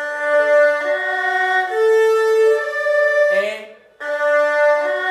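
Erhu bowed one note per stroke through a broken-chord arpeggio: four rising notes of the C major chord (do-mi-sol-do). After a short break about four seconds in, the next chord's arpeggio (A minor) starts from the bottom.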